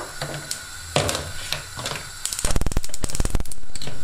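Gas hob burner being lit with an electric spark lighter. A knock about a second in, then a rapid run of spark clicks for about a second, then the steady hiss of the burner once the gas catches.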